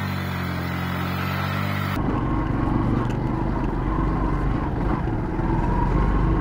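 Background music for about two seconds, then a sudden cut to a motorcycle riding along a wet, slushy road: the engine running under steady wind and road noise.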